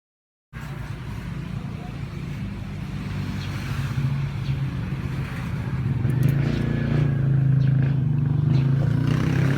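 A vehicle engine running steadily, starting abruptly about half a second in and growing louder.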